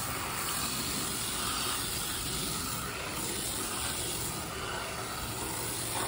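Garden hose spraying water through an air conditioner condenser coil, a steady hiss of spray rinsing loosened dirt and foam cleaner out of the fins.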